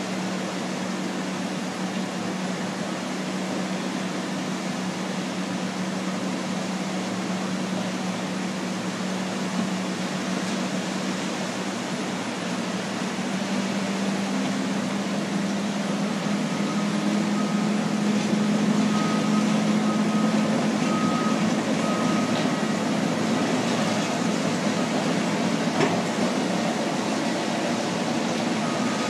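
Bulldozer diesel engines working sand, a steady drone under a wash of noise that grows louder past halfway. A faint backup alarm beeps for a few seconds about two-thirds through.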